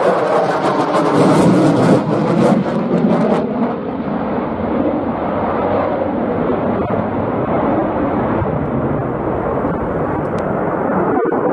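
Eurofighter Typhoon fighter jet's twin EJ200 engines making a loud, rumbling jet noise as it flies a display. The noise is loudest and crackling for the first few seconds, then settles to a steadier, slightly quieter rumble as the jet moves away.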